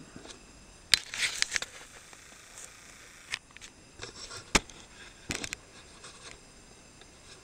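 Scattered sharp clicks and light clatter of handling, in half a dozen short bursts with quiet between them.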